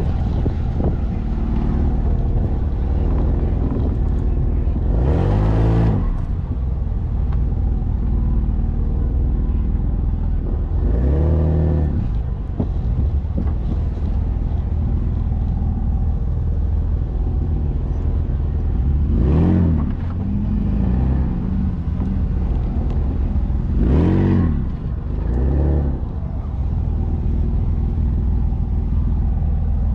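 Jeep Wrangler's engine pulling at low speed over a sandy off-road track, revving up and easing back off about four times.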